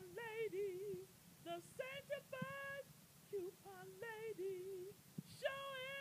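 A woman singing softly to herself, a wordless wavering tune in short phrases with brief pauses between them.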